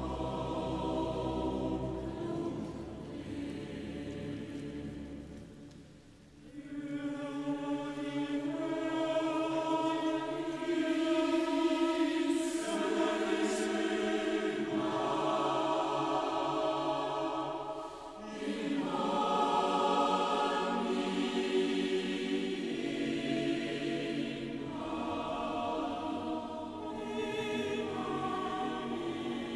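Large mixed choir singing slow sustained chords with orchestral accompaniment, in a reverberant church. The sound thins to a hush about six seconds in, then swells back louder, with a smaller dip near the middle.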